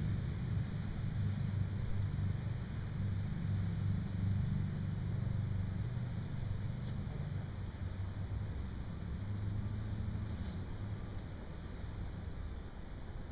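Insects chirping steadily in a regular rhythm, about two high chirps a second, over a low steady rumble.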